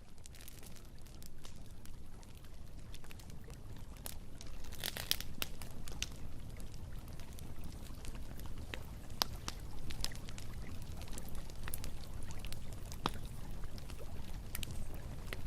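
Wood campfire crackling: sharp, irregular pops and snaps over a low steady rumble, with a quick run of pops about five seconds in.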